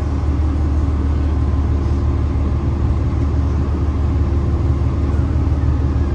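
Cabin sound of a New Flyer Xcelsior XDE60 diesel-electric hybrid articulated bus with a Cummins ISL9 diesel and Allison H 50 EP hybrid drive: a steady low drone from the drivetrain with a faint steady whine above it.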